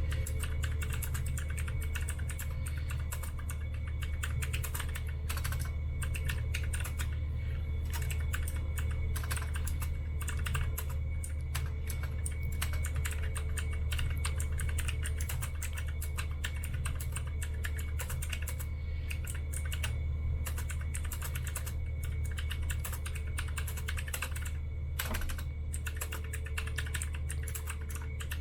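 Mechanical keyboard being typed on fast and continuously: a dense, irregular stream of clacking keystrokes over a steady low hum.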